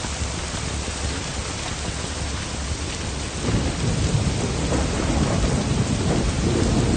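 Steady heavy rain, with a low rolling rumble of thunder that builds from about halfway through.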